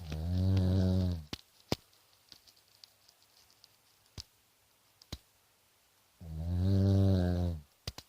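Snoring: two long snores, each a little over a second, one at the start and one about six seconds in. A few faint clicks fall between them.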